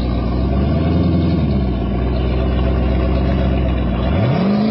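Engine of an old Volvo 240 estate running at held, steady revs, then revving up quickly a little after four seconds as the car launches away.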